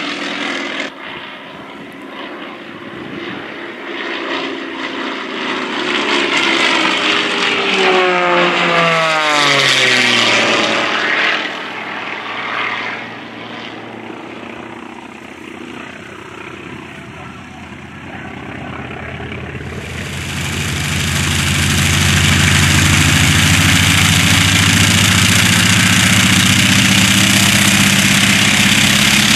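A small aerobatic propeller plane flies past under power, its engine note falling in pitch as it goes by about eight to eleven seconds in, then fading. About twenty seconds in the sound changes to the radial engine of a North American T-28 Trojan running loud and steady on the ground.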